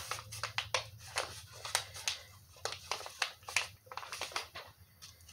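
A thin packaging wrapper crinkling and rustling in the fingers as a makeup brush is worked out of it, in a long run of irregular small crackles.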